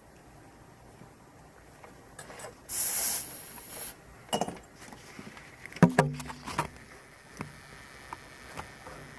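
Handling noises at a workbench: a rustling hiss about three seconds in, then a string of scattered clicks and knocks, the loudest about six seconds in.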